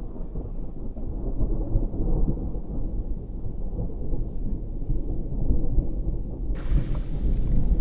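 Thunder rumbling low and continuously. A brighter hiss cuts in suddenly near the end.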